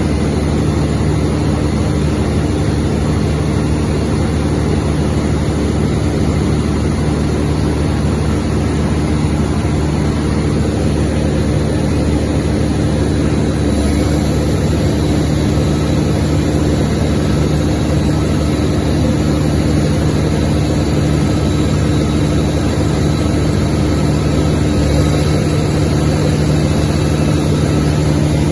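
200 kVA FG Wilson diesel generator set running steadily, its pitch holding even throughout.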